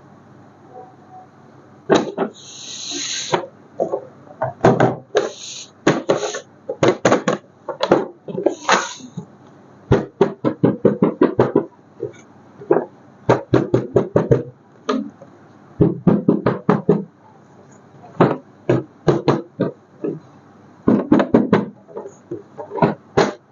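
A series of irregular sharp clicks and knocks, some with short hissing rustles, the longest rustle about two seconds in.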